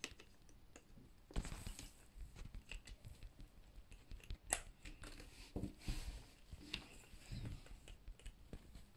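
Faint clicks and handling noise of Mega Construx plastic toy parts as wheels are pushed onto their axles, with a sharper click about four and a half seconds in.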